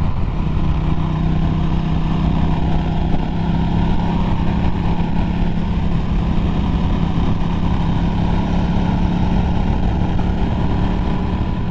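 Norton Commando 961's parallel-twin engine running steadily under way, heard from the saddle.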